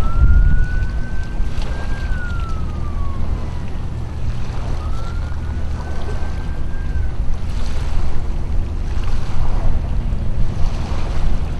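Steady wind noise on the microphone, low and heavy throughout. Two long, thin whistles sound over it: the first slides downward about two seconds in, and the second holds level from about five to seven seconds in.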